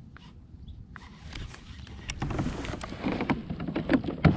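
Gear being handled on a kayak: scattered sharp clicks and knocks, getting busier about halfway through, with one sharp knock near the end.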